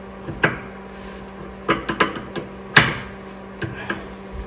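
Irregular sharp metallic clicks and knocks, about eight of them, as an adjustable rear traction arm is turned to lengthen it, over a faint steady hum.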